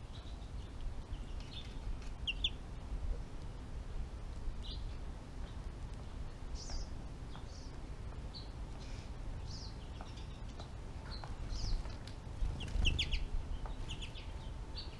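Small songbirds giving short, high chirps scattered throughout, with quick runs of notes about two seconds in and again near the end, over a steady low rumble.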